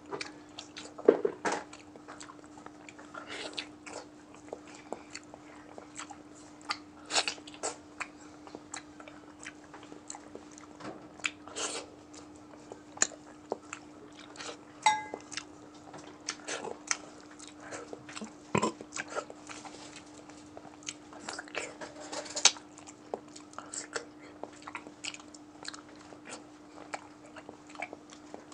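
Close-up eating sounds of a person biting and chewing a soft boiled vegetable and rice: irregular wet mouth clicks and smacks, a few of them louder. A steady low hum runs underneath.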